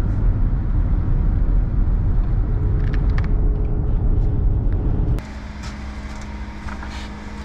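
Car running slowly, heard from inside the cabin as a steady low engine and road rumble. About five seconds in it cuts off to quieter outdoor background with a steady low hum and a few faint clinks.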